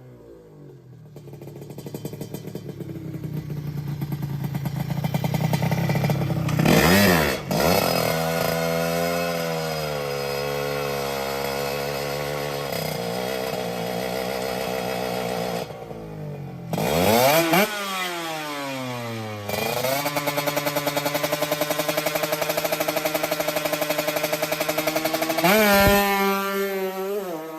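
Tuned drag-racing motorcycle engine revving and running hard, its pitch climbing steadily and then spiking and dropping sharply three times.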